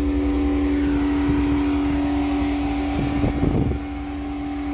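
Mercedes Sprinter van fitted with a five-litre Mercedes G-Class engine, idling steadily with an even hum over a low pulsing rumble. A brief rustling noise comes about three seconds in.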